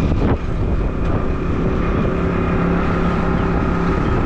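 Engine of a moving vehicle running steadily, with wind noise on the microphone.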